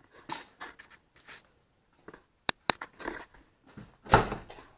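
Handling noise from a handheld camera being moved about: light rustles and shuffles, two sharp clicks about two and a half seconds in, and a louder rustle near the end.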